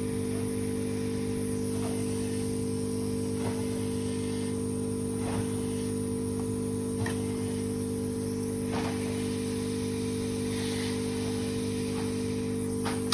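A steady low electrical hum made of several unchanging tones, with a few faint clicks now and then.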